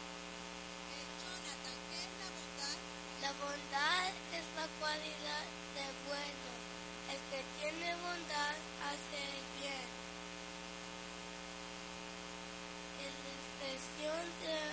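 Steady electrical mains hum, a buzz of many even tones, with children's voices talking quietly now and then.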